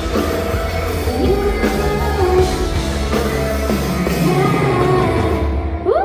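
Amplified live rock-pop band with a woman singing lead. The band stops near the end as a last vocal note slides up and down.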